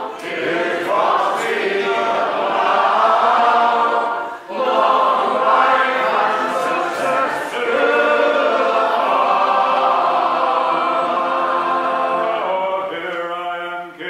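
Unaccompanied men's voices singing a folk song in harmony, full enough to sound like a choir as the audience sings along. There is a brief break between lines about four seconds in, and the singing thins out near the end.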